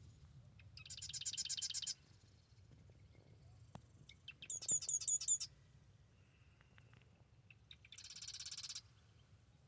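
Marsh wren singing three short, rapid trilled songs, each about a second long and a few seconds apart. Each song is a fast run of repeated high notes, and the middle one is the loudest.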